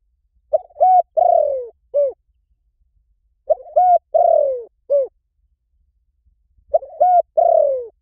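Spotted dove cooing: three identical phrases about three seconds apart. Each phrase is a few short coos and one longer falling note. It is a call track used to lure spotted doves.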